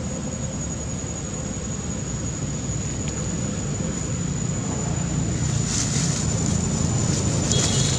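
Wind rumbling on the microphone outdoors, with a thin steady high whine throughout; from about five and a half seconds in, dry leaves crackle as a macaque rolls over in the leaf litter.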